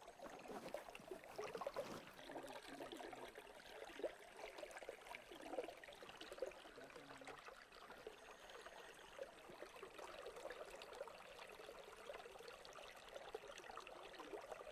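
Water trickling, faint and steady, with many small bubbling notes.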